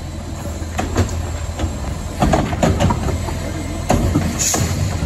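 Automated side-loader garbage truck's lift arm dumping a trash cart into the hopper: the cart knocks and clatters as it is shaken out and trash drops in, over the steady run of the truck's engine. A short hiss comes near the end as the arm brings the cart down.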